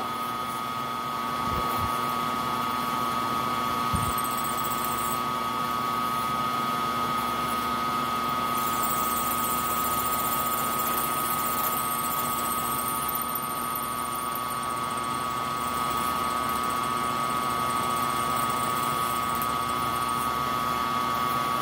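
Milling machine spindle running steadily with a constant whine, turning a small drill bit that cuts into a round metal part, with a thin hiss from the cutting at times.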